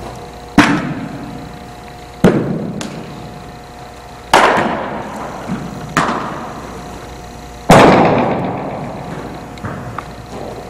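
Five sharp smacks of a baseball, roughly every two seconds, each ringing out in a long echo in a big indoor space, with a few fainter clicks between them.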